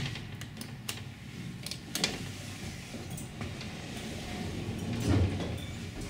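Dover hydraulic elevator cab after the ground-floor button is pressed: a sharp click of the button, a few small clicks, then the sliding doors closing with a low thump about five seconds in.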